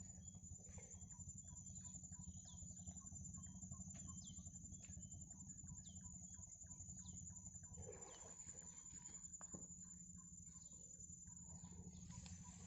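Faint bird chirping in a quick run of short, repeated notes for several seconds, then thinning out, over a steady high-pitched whine and low rumble.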